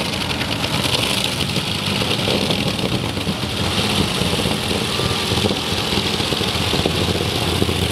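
Twin supercharged Hemi V8 engines of a modified pulling tractor running steadily at the starting line, with flames shooting from the exhaust stacks.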